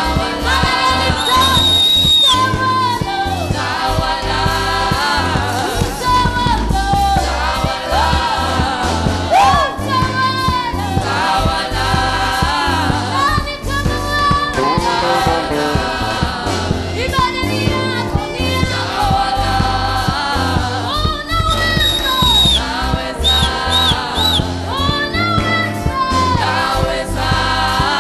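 Gospel worship music with a woman singing into a microphone over a band with a steady bass beat.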